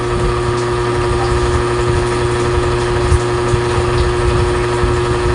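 Steady motor hum with a constant tone that runs without change, with a few faint clicks.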